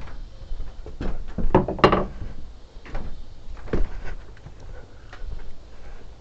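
Timber pieces being handled and knocked against each other: a few irregular wooden knocks and clunks, the loudest cluster about two seconds in and another near four seconds.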